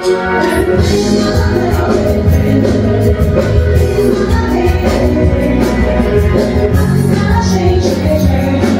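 Live band playing upbeat music with a singer: electric guitars, drum kit and keyboard, loud and continuous.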